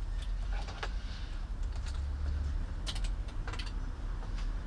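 Scattered sharp clicks and light knocks from hands working the rubber heated grip and its wire into place on the motorcycle handlebar, over a steady low rumble.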